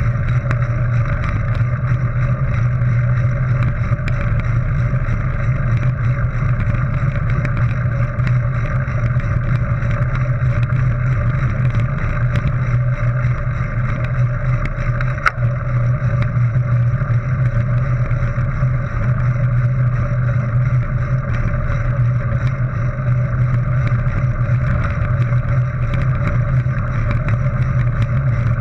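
Mountain bike rolling steadily along a gravel track, heard through a GoPro HERO 3: a constant low rumble of tyres and riding noise, with many small ticks and rattles and one sharper click about halfway through.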